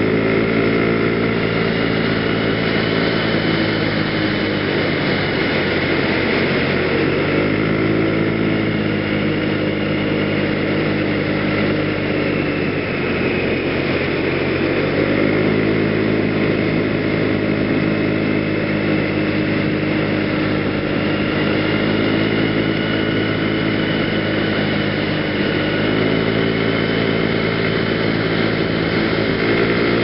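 PGO BuBu 125cc scooter's single-cylinder four-stroke engine running under way. Its note fades and then climbs again about three times as the throttle is eased off and reopened.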